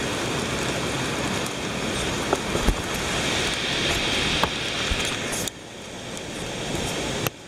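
Steady rush of water from the outflow of a river dam, dropping abruptly in level about five and a half seconds in.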